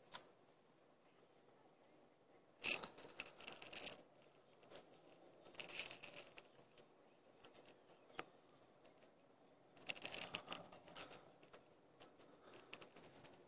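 Three bursts of crackling rustle, each about a second long, over a faint quiet background: handling noise of something rubbing close to the recording microphone.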